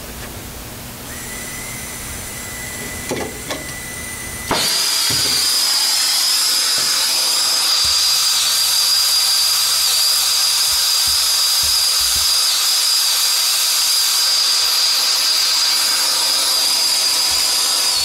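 Air-acetylene torch: first a quieter hiss with a faint steady whistle and a couple of small clicks. About four and a half seconds in, the torch lights with a sudden jump to a loud steady hiss and a high whistle, burning steadily as it heats an aluminum coil, then cuts off sharply near the end.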